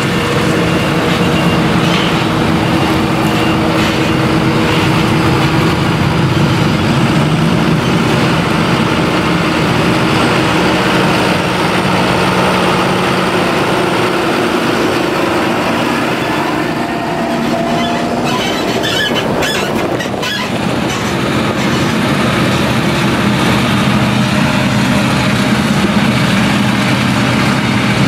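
Claas Jaguar 970 forage harvester's MAN V8 running steadily under full load while chopping maize, alongside a tractor's engine. A short spell of clicks and rattles comes about two-thirds of the way through.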